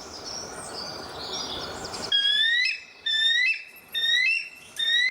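A bird calling: about two seconds in, a run of about six loud rising whistled notes begins, each about half a second long. Before it there is a hiss of forest ambience with faint high chirps.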